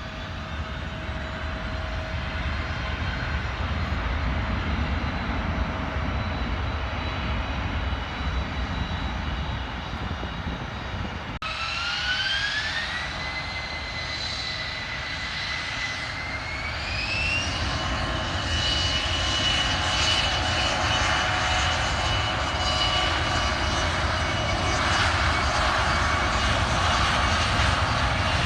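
Jet airliner engines running with a steady roar and faint high whine; about halfway through, a rising whine spools up in two steps, then holds as the roar grows louder, as at the start of a takeoff run.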